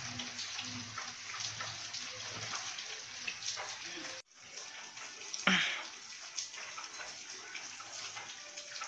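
A steady low hiss with faint crackles. It cuts out briefly about four seconds in, and a short, louder knock follows about a second later.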